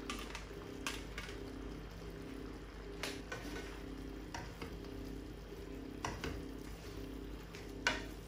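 Food sizzling in a frying pan as it is stirred, with a utensil knocking against the pan several times; the loudest knock comes near the end.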